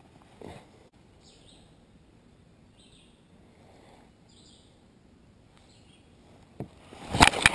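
Songbirds chirping intermittently over a quiet background. Near the end, a short burst of sharp clicks and knocks is the loudest sound.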